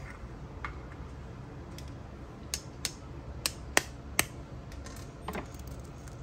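A few sharp clicks and taps as an egg is knocked and its shell cracked open over a stainless steel mixing bowl, the loudest a little under four seconds in.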